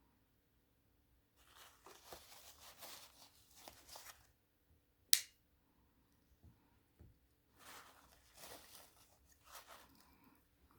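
A Swiss Army knife being handled as its tools are worked: stretches of scratchy rubbing and scraping, a few faint ticks, and one sharp click about halfway through as a tool snaps into place.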